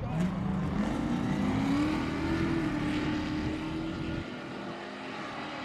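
Drag-strip cars launching and accelerating down the track. The engine note rises over the first couple of seconds, then holds steady and thins out as the cars pull away.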